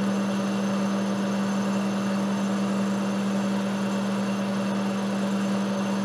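Monarch model K lathe running steadily with its chuck spinning, giving an even mechanical hum with one strong low tone.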